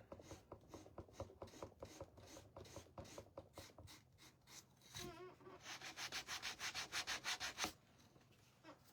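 Sandpaper on a hand sanding block rubbed back and forth over the painted wooden cutting board, in short strokes. The strokes are slow and faint at first, then quicken to about six a second and grow louder for about two seconds past the middle, stopping near the end. The sanding is smoothing down bubbled, peeled-up paint.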